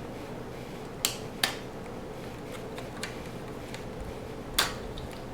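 Three sharp clicks of plastic parts and a cable connector being handled while a Roomba 500 series is taken apart, over a steady faint hum: two close together about a second in, a louder one near the end.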